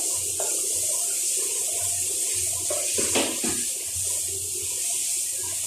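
Water running steadily from a kitchen tap while hands are washed under it, with a couple of light knocks about a second in and after three seconds.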